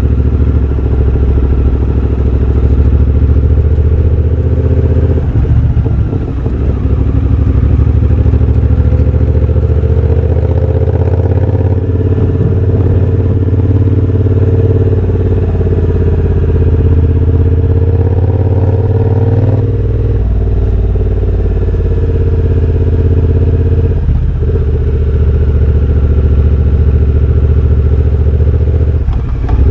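Exhaust of a 2023 Triumph Bobber's 1200 cc parallel twin, de-catted with an X-pipe and Motone shorty silencer, running loud under way. The engine note shifts several times, with short dips about 6, 20, 24 and 29 seconds in, like throttle changes.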